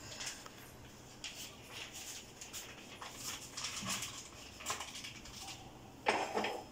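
Oil crackling in a frying pan on a gas burner as bread slices fry, in short irregular spits. About six seconds in, a louder knock as the pan is handled.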